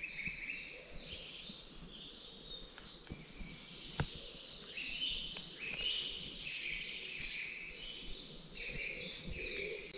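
Woodland songbirds singing in the morning chorus. One bird repeats short high notes that fall in pitch, about three a second, over other birds warbling. A single sharp click comes about four seconds in.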